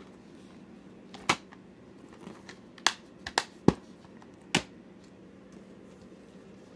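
Plastic DVD cases being handled and moved, giving about five short, sharp clicks and taps spread over the middle seconds.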